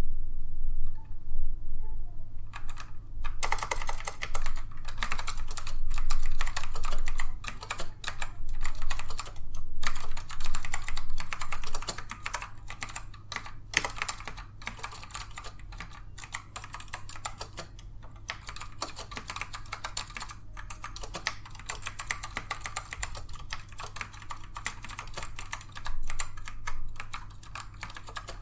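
Fast typing on a Dell AT102W keyboard with black Alps switches, which are tactile rather than clicky: a dense, continuous clatter of keystrokes. It pauses briefly near the start and is louder in the first half than in the second.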